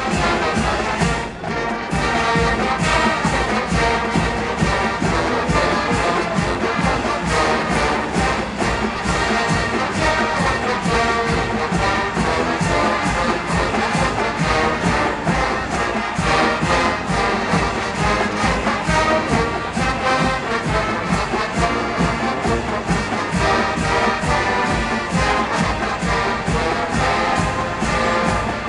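Marching band of brass and drums playing a military march over a steady drumbeat.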